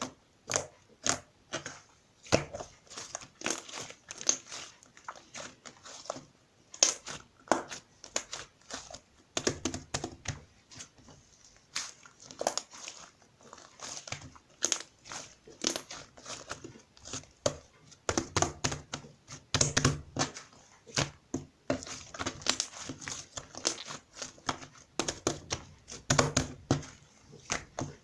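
Fluffy clay slime being squeezed, stretched and pressed by hand, giving an irregular stream of small sticky pops and crackles.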